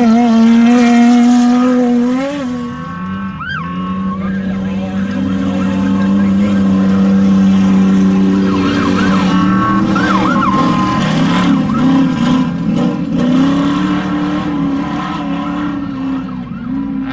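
Off-road desert race vehicle engines running hard, the pitch holding fairly steady with small dips and rises. The sound drops briefly about three seconds in, then builds again.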